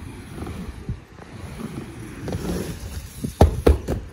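Quad roller skate wheels rolling and rumbling on a wooden mini ramp, with a quick run of several loud knocks about three and a half seconds in.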